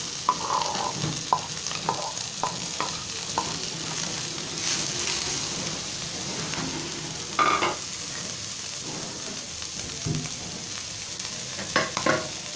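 Dried fish (shutki) sizzling steadily as it fries in a little oil in a pan, with a few short knocks and scrapes in the first few seconds, around seven seconds in, and again near the end.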